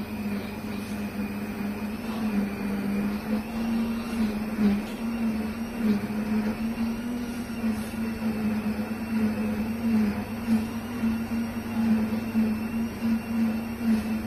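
Cooking blender's motor running steadily under load with its jar full of liquid: an even, low hum that wavers slightly in pitch.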